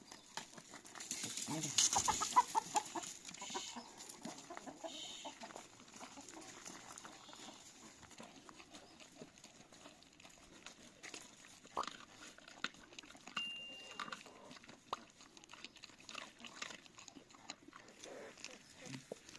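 Domestic chickens calling and clucking, with one loud pitched call lasting about two seconds near the start, then fainter scattered calls and small clicks.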